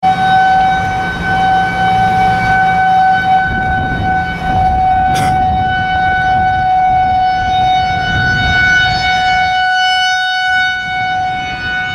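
Outdoor tornado warning siren sounding one steady, held tone over a low rumble, signalling a tornado warning in effect. A brief sharp noise cuts across it about five seconds in.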